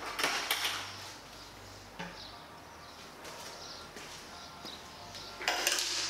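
Plastic buckets and detailing gear being set down and handled, with a scratchy clatter in the first second, a sharp click about two seconds in, and another burst of handling noise near the end.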